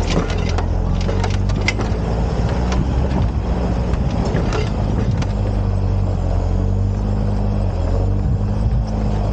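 Isuzu D-Max ute's diesel engine running steadily as it crawls up a rocky dirt track, with stones and gravel crackling under the tyres in the first couple of seconds and again about four and a half seconds in.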